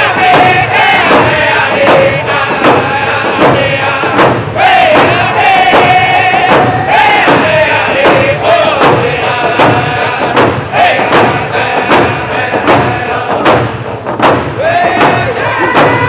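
A group of men singing a round dance song together in high voices, with long held and gliding notes, over a steady beat of hand drums at about two strokes a second.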